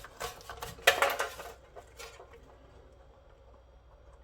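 Small metal clinks and clicks of hand tools and parts being handled while a TV is dismantled, with one sharper knock about a second in. Then it goes fairly quiet.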